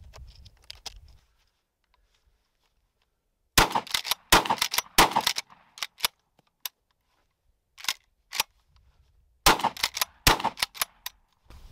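12-gauge Rock Island All Gen 12 pump-action shotgun firing low-brass birdshot, with the pump being worked between shots. Two quick strings of loud shots, about four seconds in and again near the end, with smaller clacks between them.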